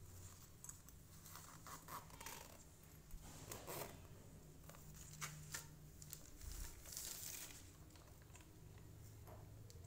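Faint, scattered rustles and small clicks of a fabric cue case being handled, with its pocket zipper pull being fingered and moved.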